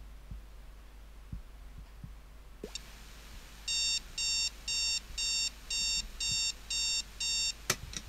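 Philips AS860 docking station speakers: a high hiss comes on about two and a half seconds in as playback starts. This is the dock's noise fault, heard whenever an audio signal is played. Over the hiss, eight short electronic alarm-style beeps come through the speakers at about two a second, followed by a sharp click near the end.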